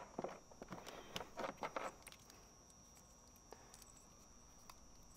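Faint small clicks and rattles of plastic wire-harness connectors being handled and plugged onto a speaker, clustered in the first two seconds, then near silence.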